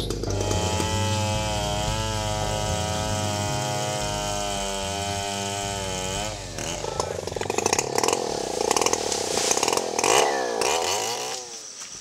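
Two-stroke chainsaw running at a steady speed, then about six seconds in its pitch swings down and up as it cuts into an oil palm trunk under load, winding down near the end.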